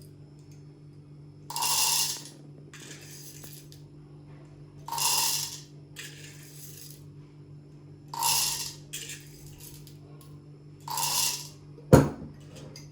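Whole coffee beans poured into a burr grinder's hopper in four separate pours about three seconds apart, each a short rattle of beans on hard plastic, with lighter rattles between them. A single sharp knock near the end.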